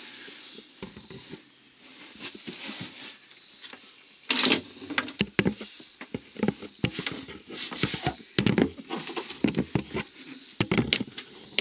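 Handling noise in a cramped compartment: a string of irregular knocks, clicks and rustles, the loudest about four seconds in, as things are bumped and brushed while reaching in among the wiring.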